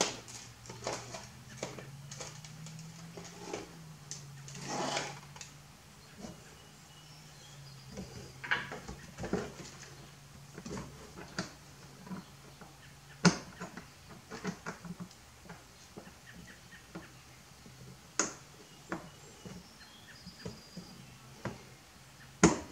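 Scattered light clicks, taps and a few sharper knocks of hand work under a car's front bumper: screws and mounting parts being handled and fitted by hand. A faint steady hum runs underneath.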